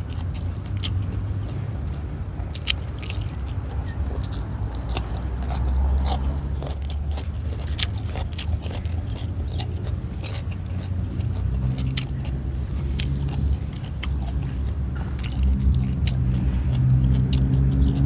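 A person chewing and biting crunchy winged bean pods, with many short crisp crunches scattered through. A steady low rumble runs underneath.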